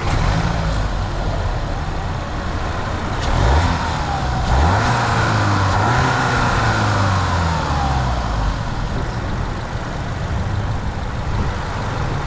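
Volkswagen MK8 GTI's 2.0-litre turbocharged four-cylinder running, fitted with an aftermarket RacingLine turbo inlet pipe. The revs climb from about three seconds in, hold, and fall back around eight seconds.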